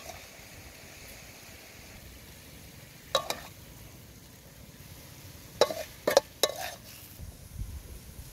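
Wooden spatula scraping and knocking against a metal wok: one stroke about three seconds in, then three more in quick succession near six seconds. Under it runs a low frying hiss from gizzard and greens cooking in the wok.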